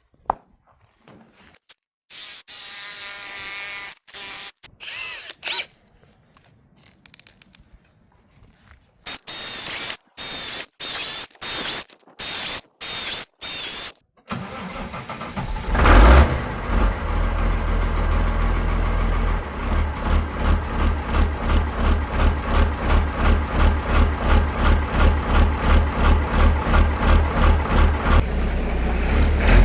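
Short, chopped-up bursts of scraping and high squeaking, then about halfway through an engine cranks and starts. It then runs steadily with a regular pulsing beat.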